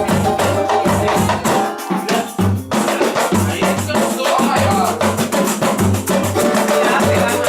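Samba music with a pulsing bass line, shakers and drums, and a voice over it. The bass drops out briefly about two seconds in, then comes back.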